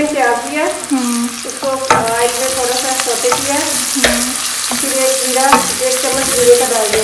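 Sliced onions sizzling as they sauté in oil in an aluminium pot, stirred with a wooden spoon that scrapes against the metal with wavering squeaky tones. A few sharp knocks sound as the spoon hits the pot.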